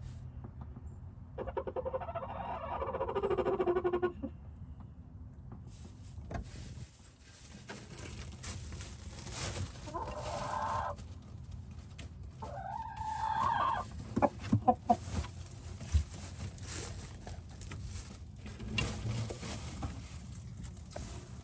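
Rooster making three odd low calls, the first long, pulsing and falling in pitch, the last bending up and down, with rustling and a few sharp knocks in between. The owner takes these for a rooster's nest-making calls to his hens.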